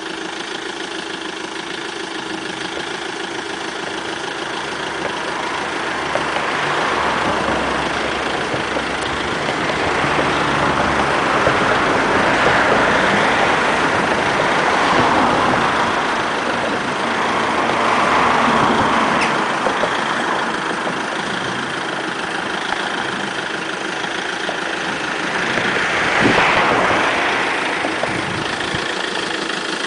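Fiat Ducato box van's engine running at idle, a steady hum. The noise swells louder for a couple of seconds several times.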